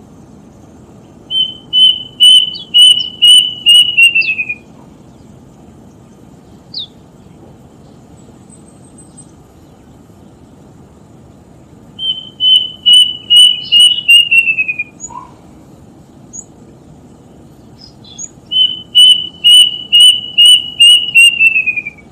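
The tutit-tutit bird singing three phrases, each a quick run of seven or eight clear whistled notes on one pitch that slide down at the end. In local belief the call foretells a death.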